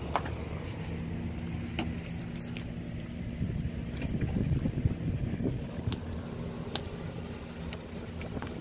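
A motor vehicle's engine idling steadily, swelling louder for a couple of seconds around the middle, with scattered light clicks and rattles.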